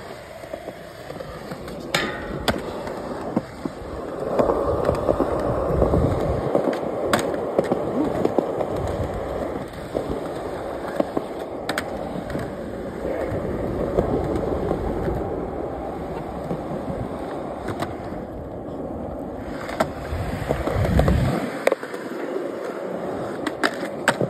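Skateboard wheels rolling over concrete with a steady rumble, broken several times by sharp clacks of the board popping and landing as tricks are done.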